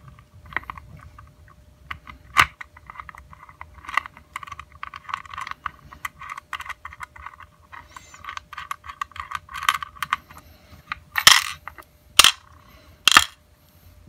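Small metal lock parts clicking and scraping as a padlock core is worked apart by hand with a wire and plug follower, a rapid uneven run of light ticks with a few louder clicks near the end.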